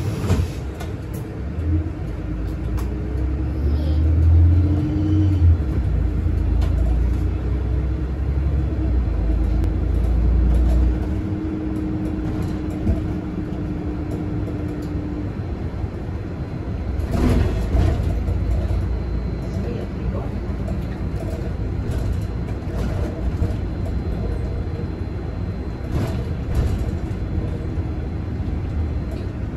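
Interior of a Solaris city bus under way: a low engine rumble, heavier over the first ten seconds or so, with a steady drivetrain whine on top. A burst of rattling and knocks comes about seventeen seconds in, and a smaller one near the end.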